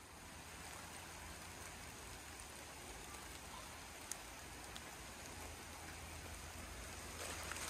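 Light rain falling steadily, a soft even hiss, with a faint drip about four seconds in.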